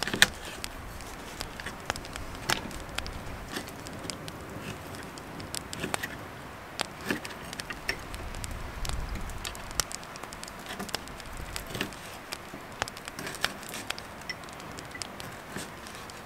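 Knife cutting smoked pork belly on a wooden board, the blade tapping the board in scattered sharp clicks at an irregular pace.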